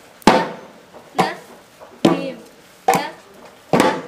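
Mridangam drum strokes played slowly and evenly, five in all, each a sharp hand stroke on the drumhead with a brief pitched ring.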